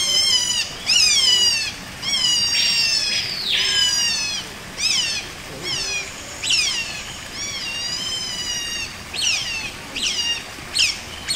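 Otter yelling: a run of high-pitched squealing calls, most of them falling in pitch, with one longer arched call about three seconds in. The calls are insistent, perhaps begging for food at feeding time.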